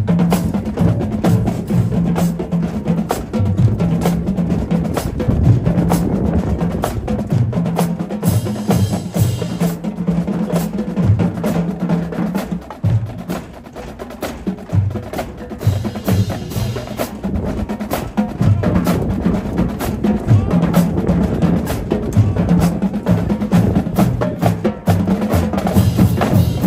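Marching band drumline playing a cadence: rapid snare and tenor drum strokes with stick and rim clicks over shifting pitched bass drum notes.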